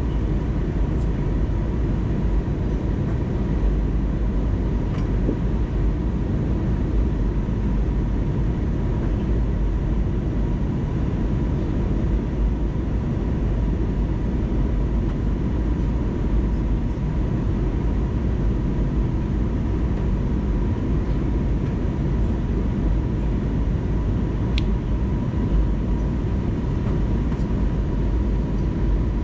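Steady cabin noise of an Airbus A320neo in flight on approach: a deep, even rumble of engines and airflow with a thin steady whine running through it. A couple of faint clicks, one about five seconds in and one near the end.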